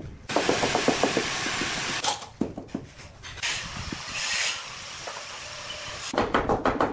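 Hand tiling work: a ceramic skirting strip being pressed and worked into mortar against a wall, making a harsh scraping that starts suddenly and lasts nearly two seconds, a shorter scrape later, and a quick run of knocks near the end.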